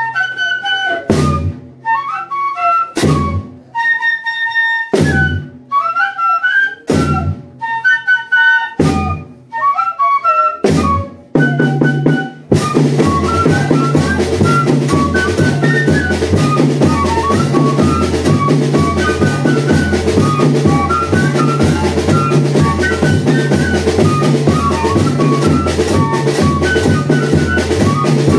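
Banda de pífanos playing: cane fifes carry the melody while a bass drum (zabumba) gives single strokes about every two seconds. Roughly halfway through, the full percussion comes in with a steady, driving beat under the fifes.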